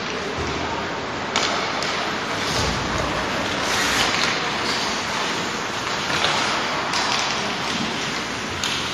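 Ice hockey play in an indoor rink: a steady hiss of skates on the ice, with a few sharp knocks from sticks and puck, echoing in the hall.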